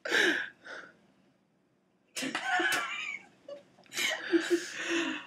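People laughing in breathy bursts, three main bouts with short pauses between.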